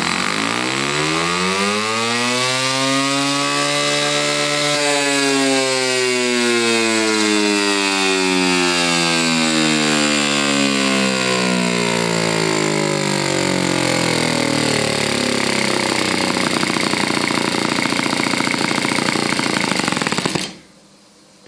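OS FS-40s single-cylinder four-stroke glow model engine, bored up to 8.3 cc with larger valves and a ported head, running hard through a dynamometer test run. Its pitch rises for about five seconds, then falls steadily for about ten seconds. It cuts off suddenly about a second before the end.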